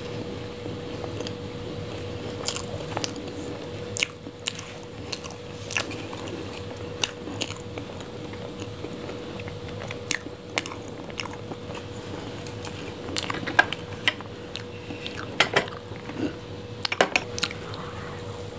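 Close-miked mouth sounds of biting and chewing a piece of chocolate cake topped with chocolate shavings: scattered short wet crackles and clicks, coming thickest in the last few seconds. A faint steady hum runs underneath.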